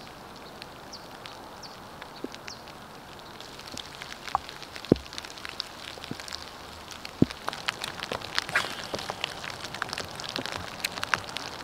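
Light rain: scattered drops ticking close by over a faint steady hiss, the ticks coming more often from about four seconds in, with two louder ones in the middle.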